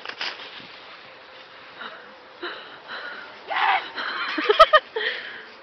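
Dry autumn leaves rustling and crunching in short bursts, the biggest about three and a half seconds in. Right after it comes a brief run of quick pitched voice-like pulses.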